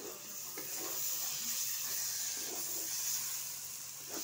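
Onion-and-coconut masala with chopped tomatoes sizzling in hot mustard oil in a wok, with a few scrapes of a spatula as it is stirred.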